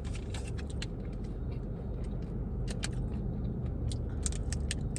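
Someone chewing a crunchy nut-and-granola bar, with small crackling clicks scattered through, over a steady low rumble.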